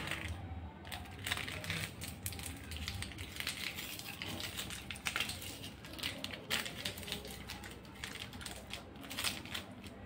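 Small foil-plastic instant coffee sachet crinkled and handled, a run of irregular crackles and clicks.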